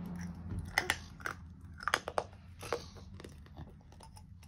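Irregular light clicks and taps of hard plastic toys being handled: a toy medicine dropper and syringe being picked up and fitted together.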